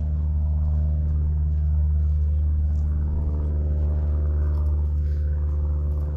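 An engine running steadily at idle: a low, even drone.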